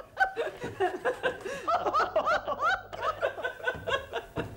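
A woman laughing, explosive and unrestrained: a long run of quick, high bursts, each rising and falling in pitch.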